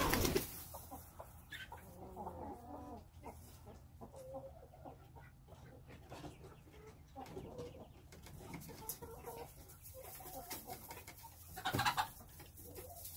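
Domestic chickens clucking softly in the coop, a scatter of low murmured calls, with a brief louder scuffle near the end as a hen runs across the straw.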